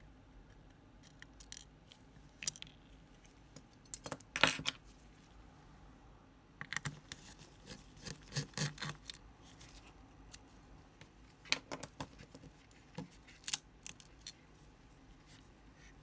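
Small metal tools and parts handled at a workbench: irregular clicks and light clatter in short clusters with pauses between, the sharpest cluster about a quarter of the way in.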